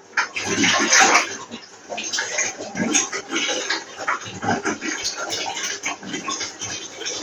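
Water running into a bath, an uneven, choppy rush that rises and falls.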